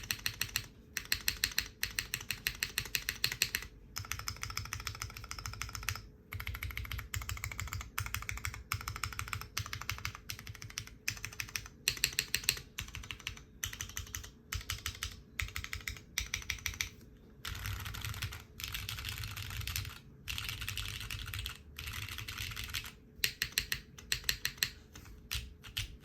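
Typing on a SINGAKBD Kohaku R2 custom mechanical keyboard with lubed, filmed Cherry MX Brown tactile switches on an aluminium leaf-spring plate, GMK keycaps and no foam. Fast runs of key clicks and bottom-outs come in bursts of a second or two, with brief pauses between them.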